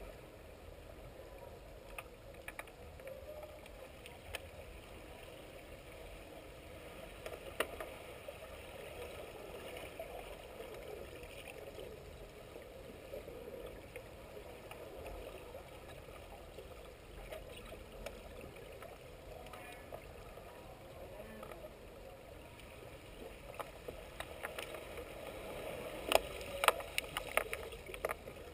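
Underwater pool ambience heard through a submerged camera: a steady muffled water noise, with scattered sharp clicks and knocks and a burst of louder clicks near the end as underwater hockey players scramble close by.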